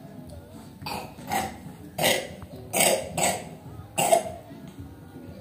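A person coughing: about six coughs between one and four seconds in, some in quick pairs, the last the loudest. The cough of someone who is sick.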